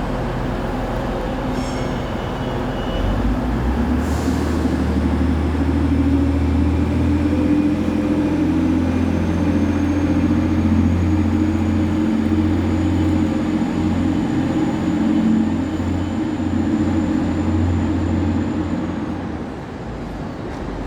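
Train in the station running under power: its low hum gets louder about three seconds in and holds for about fifteen seconds, with a faint high whine that slowly rises, then it eases off near the end.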